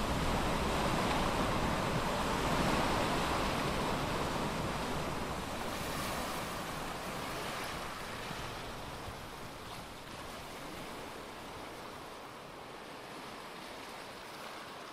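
Ocean surf with some wind: a steady rushing noise that slowly fades over the second half.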